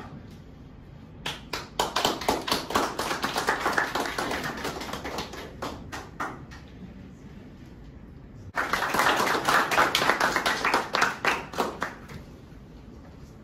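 A small group clapping in two rounds. The first starts about a second in and lasts some five seconds; the second starts a couple of seconds after it ends and lasts about three and a half seconds.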